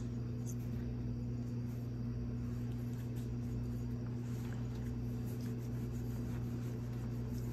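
A steady low electrical hum, with faint rustling and small ticks of a terry towel being rubbed over a newborn puppy.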